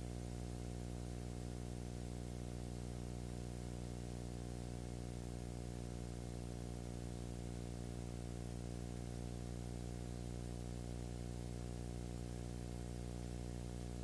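Steady electrical hum with many overtones under a constant background hiss, unchanging throughout.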